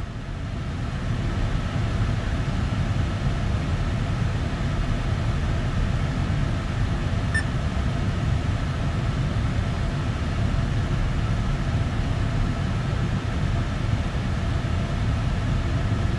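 Steady low rumble with a faint even hum inside a GM full-size truck's cabin, from the idling engine and the climate-control fan.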